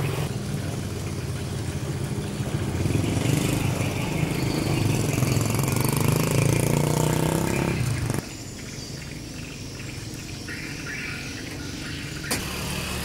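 Street traffic with motor vehicle engines running close by, one rising in pitch as it speeds up. About eight seconds in the engine sound cuts off abruptly to a quieter outdoor background, with a single sharp click near the end.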